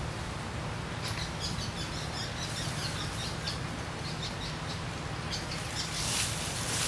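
Small birds chirping repeatedly in short high calls over a steady low hum, with a brief louder hiss near the end.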